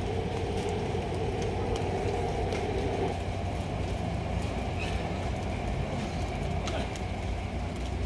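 Steady low rumble of vehicle engines and city traffic, with a humming tone that stops about three seconds in.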